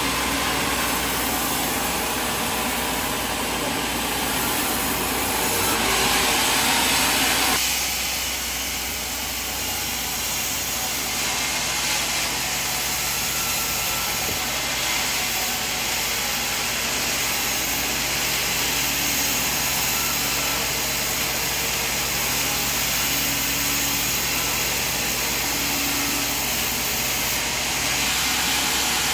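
Sawmill machinery running, a steady noise with no clear rhythm that changes abruptly in tone about eight seconds in.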